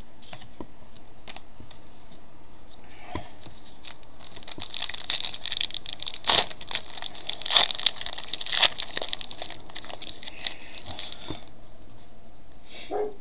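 Foil trading-card pack wrapper crinkling and being torn open, with a run of sharp crackles from about four seconds in until shortly before the end. Only a few faint clicks come before it.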